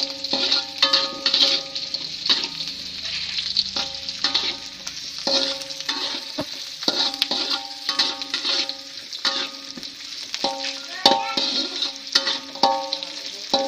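Bruised spices (galangal, lemongrass, chili, garlic, shallots) sizzling in hot oil in a wok, stirred with a spatula that scrapes and knocks against the pan many times, each knock leaving a short ring.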